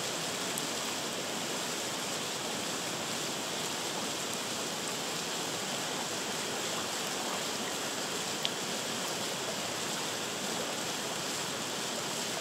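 Steady rush of flowing river water, with a small waterfall on the bank, and a single faint click about eight seconds in.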